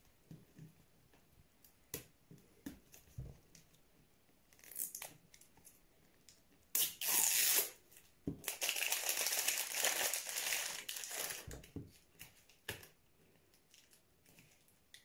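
Crinkly plastic wrapping being torn off a toy surprise ball by hand. Light rustles and handling clicks come first, then a short loud tear about seven seconds in, followed by about three seconds of tearing and crinkling.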